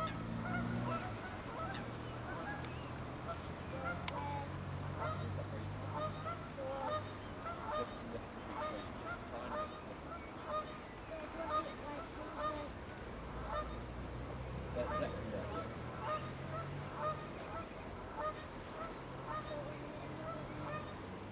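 Geese honking, many short calls in an uneven series, over a low steady hum.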